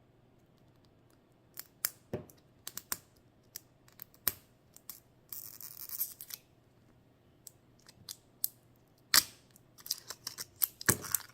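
Hands working at a plastic toy ball to get it open: scattered clicks and taps of plastic, a short rustle about halfway through, and a sharper snap near the end.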